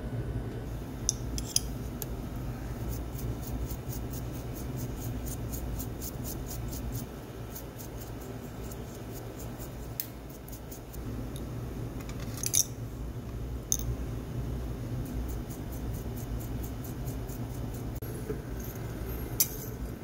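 Small hand tools on a watch movement's main plate: sharp little metal clicks from tweezers and cleaning tools, a couple near the start and more in the second half, with a quick even run of light ticks for a few seconds early on, over a steady low hum.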